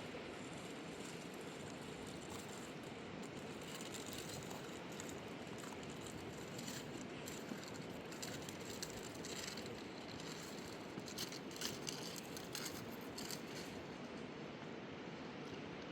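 Steady rushing of a fast mountain river. Scattered small clicks and rattles sit over it through the middle of the stretch.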